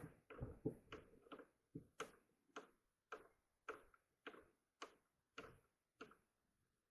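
Faint, light clicks repeating about every half second from a small hand tool backing out the rear screw of an RC car's hub carrier.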